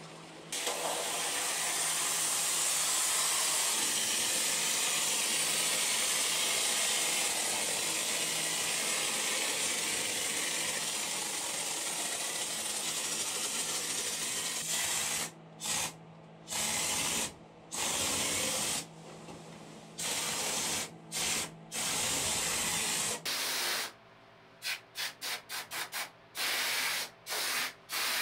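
IxirPro 30 oz spray foam can on its applicator gun, hissing as foam is sprayed. One long, unbroken spray lasts about fifteen seconds, then the hiss comes in separate spurts as the trigger is pulled and released, with several quick short spurts near the end.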